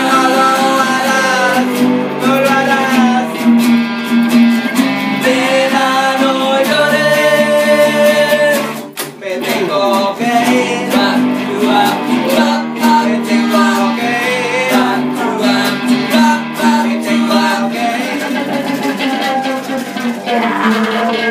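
Live acoustic band: several guitars strummed and picked under sung vocals holding long notes. About nine seconds in the music briefly drops, then the guitars carry on with quicker picked notes.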